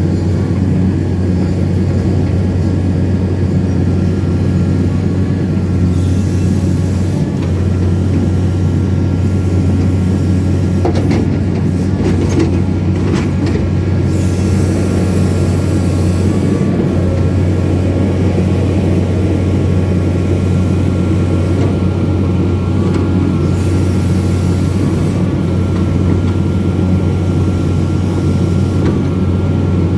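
Excavator diesel engine running steadily with a strong low hum, with short bursts of high hiss recurring every several seconds and a few sharp clicks near the middle.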